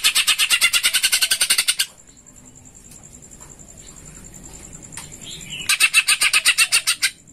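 Caged male green leafbird (cucak ijo) singing two bursts of fast repeated chattering notes, about ten a second, the second burst shorter. The run is the tree-sparrow-style chatter that the leafbird mimics.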